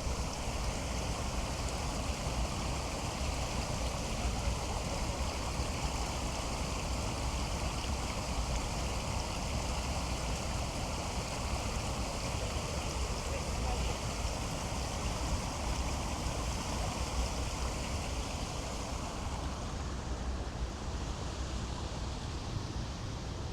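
Water pouring over a small river waterfall: a steady, even rushing noise, its hiss easing a little near the end.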